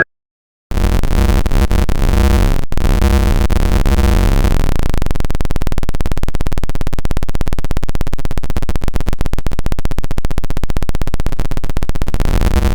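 Federal Sign & Signal Model 7 tornado siren recording, electronically distorted into a loud, bass-heavy buzz. It starts after a brief silence and is chopped into rapid pulses that get faster.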